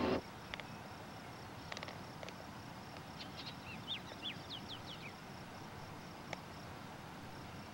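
Rumble of a passing train cuts off abruptly, leaving a quiet open-air background in which a bird calls a run of short, high, falling chirps in the middle, with a few faint clicks.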